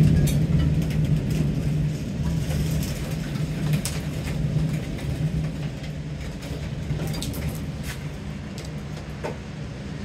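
A long roll of thunder during a thunderstorm, loudest at the start and slowly fading away, over rain with scattered sharp drips.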